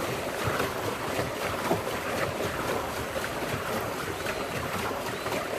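Water churning and splashing steadily as a pedal boat is pedalled forward, with wind buffeting the microphone.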